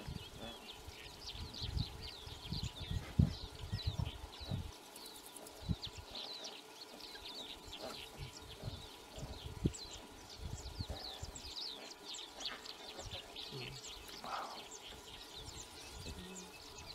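Birds calling with many short, high, falling chirps, over irregular low rumbling with a couple of louder knocks.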